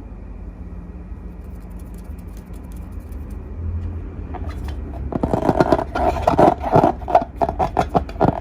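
Slime being worked by hand: after a low steady hum, dense wet crackling and squishing clicks start about halfway through and keep going.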